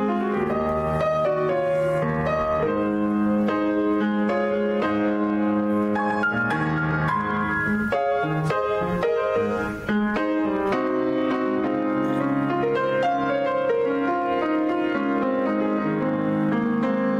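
Piano music, chords under a melody, played on without pause; the loudness dips briefly about ten seconds in.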